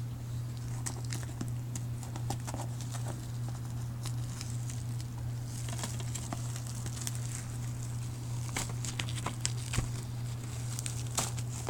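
Hands handling a plastic DVD case: scattered small clicks, taps and light crinkling, busier in the second half, over a steady low hum.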